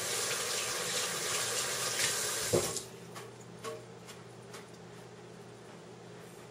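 Kitchen tap running water, turned off about two and a half seconds in with a short knock, followed by a few faint clicks of handling.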